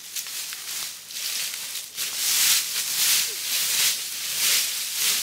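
Dry fallen leaves rustling and crunching in irregular bursts as they are scraped together and gathered by hand from the forest floor, getting louder about two seconds in.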